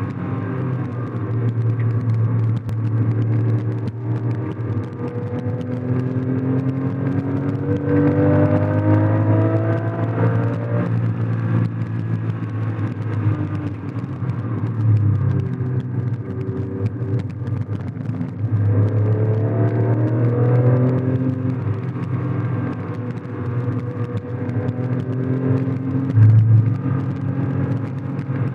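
Porsche 996 GT3's 3.6-litre flat-six engine heard from inside the cabin, running hard on track. Its pitch climbs twice under acceleration, around eight and nineteen seconds in, each time dropping away after.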